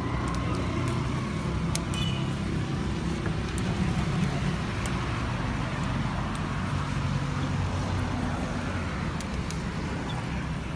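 Steady low rumble of motor traffic, with a few faint ticks.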